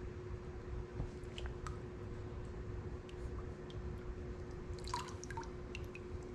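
Water splashing and dripping in a plastic hydro-dip tub as a gloved hand dips a fishing-reel part through the paint film and lifts it out, with a cluster of drips about five seconds in. A steady hum runs underneath.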